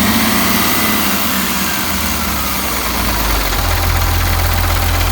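Turbocharged diesel engine of a Ural truck idling, its low drone settling into a steady hum about three and a half seconds in.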